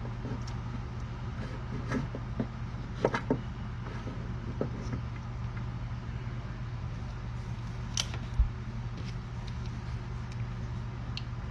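Small clicks and taps of wires and hand tools being handled during soldering of wiring joints, a few of them sharper, about 3 s and 8 s in, over a steady low hum.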